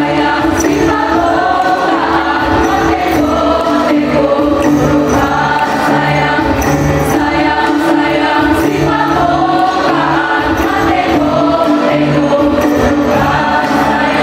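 School choir of girls and boys singing together, over a steady low accompaniment with a repeating low beat.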